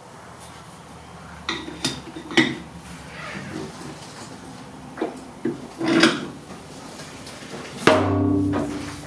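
Metal tools clinking and clanking as they are handled at a metal lathe: a scatter of sharp metallic knocks, with a longer ringing clank near the end.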